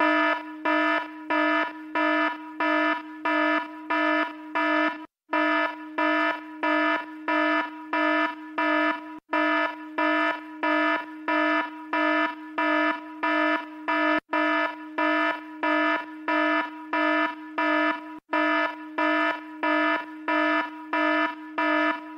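Electronic alarm-like beeping: one steady pitched tone rich in overtones, pulsing about twice a second. The pulsing breaks off for an instant every four or five seconds.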